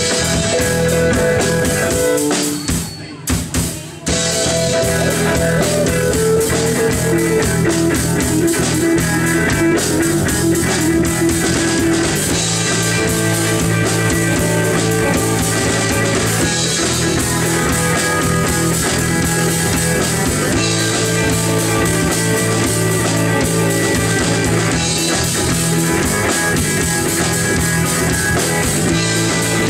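Live rock band playing electric guitars and a drum kit, loud and steady, with a short break in the music about three seconds in.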